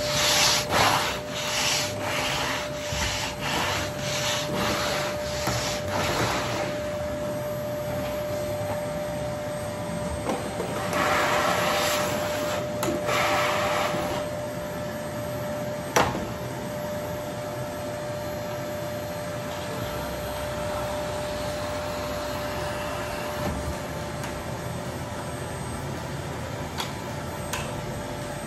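Canister vacuum cleaner running with a steady whine. For the first several seconds its floor nozzle is pushed back and forth over tile, giving rhythmic surges of suction noise, and two more surges come a little before halfway. A single sharp click sounds about halfway through.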